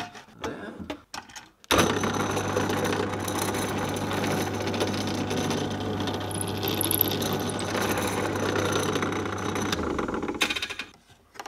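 Bench drill press switched on a little under two seconds in, its motor running with a steady hum while the bit drills into a wooden block; the motor switches off about ten seconds in and the sound dies away. A few light clicks of handling before it starts.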